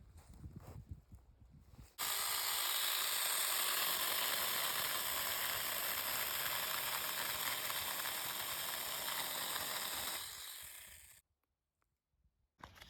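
Handheld battery-powered mini chainsaw running and cutting through a small branch. It starts suddenly about two seconds in, runs steadily with a high whine, and winds down near the end.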